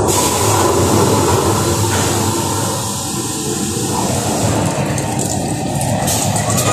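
A steady, loud rushing noise that starts suddenly.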